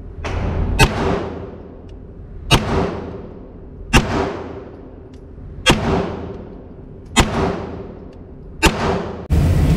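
Six 9mm pistol shots from a Walther PPQ Q5 Match, fired at a steady slow pace about a second and a half apart, each one echoing and dying away in an indoor range. Near the end the shots give way abruptly to a steady low rushing noise.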